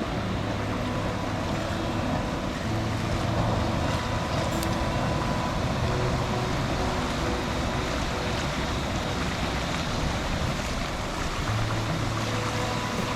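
Rushing mountain stream water, a steady noise, with a low hum that grows and fades a few times.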